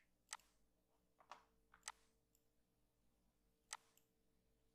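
About five faint, sharp computer mouse clicks, scattered and irregular, with near silence between them.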